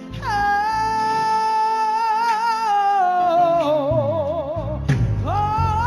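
Gospel singer holding a long, high sung note that gains vibrato and glides downward, then breaks off and swoops up into a new note near the end. Low instrumental backing comes in under the voice in the second half.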